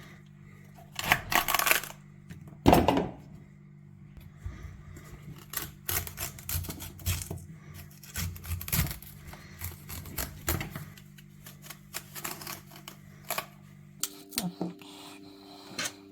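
Knife cutting fennel bulbs on a cutting board: a crisp crunch about a second in and a thump, then a run of short, irregular knocks of the blade against the board.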